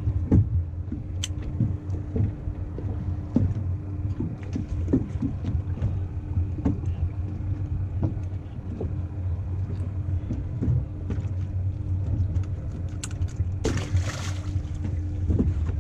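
Scattered small knocks and clicks of a small gag grouper being unhooked by hand over a low steady hum. Near the end, a short splash as the released fish drops into the water.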